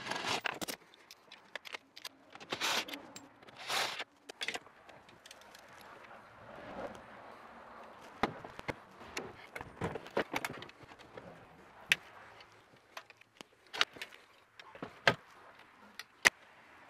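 Hand tools and metal parts clinking and scraping: a few short rattling bursts, then sharp single metallic clicks at irregular intervals, as the steering column bolts are worked on.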